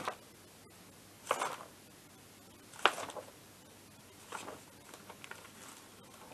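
Paper rustling as sheets of a manual are handled, in several short rustles about a second apart, the sharpest about three seconds in.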